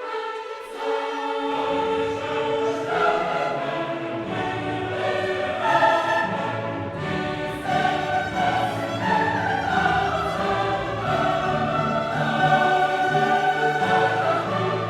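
Background music: choral and orchestral music with sustained voices, the lower parts coming in about a second and a half in.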